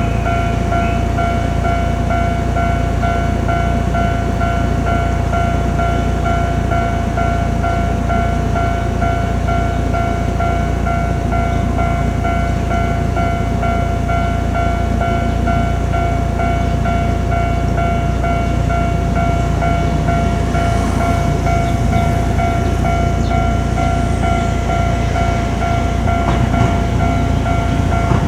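Japanese level crossing's electronic warning bell ringing its repeating "kan-kan" tone, steady and loud over a low rumble. Toward the end, the sound of an approaching train starts to build.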